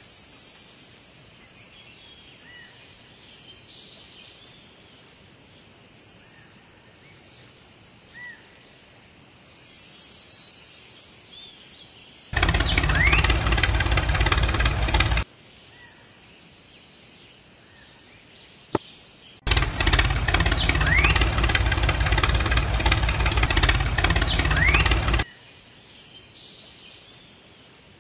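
Quiet outdoor background with occasional bird chirps, broken twice by a loud, rough, steady mechanical noise from a small motor. The noise switches on and off abruptly, first for about three seconds, then for about six. A single sharp click comes between the two runs.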